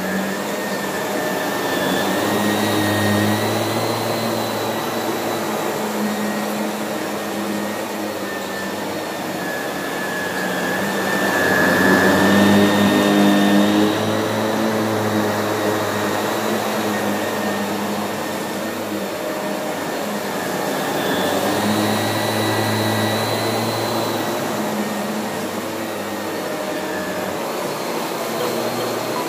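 Shark Navigator upright vacuum cleaner running: a steady motor hum with a faint high whine that swells louder a few times.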